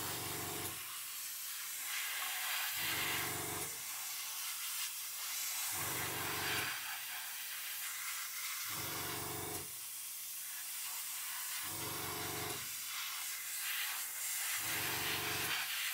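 Airbrush hissing steadily as paint is sprayed onto a plastic model kit, with a low hum that comes in for about a second roughly every three seconds.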